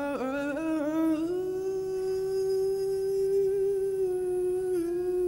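Male singer's wordless, improvised vocal opening a song: a quick run of wavering, ornamented turns for about a second, then one long steady held note with a slight dip near the end.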